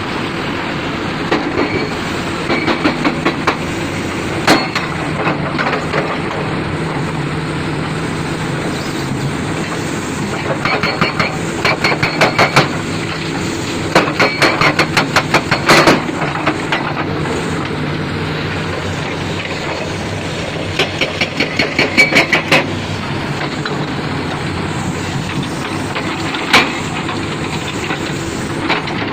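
Diesel engine of heavy construction machinery running steadily, with several bursts of rapid metallic clanking, each lasting a second or two.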